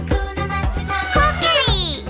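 Upbeat children's song with a steady beat of about four strikes a second and sung parts; near the end a long falling glide slides down in pitch.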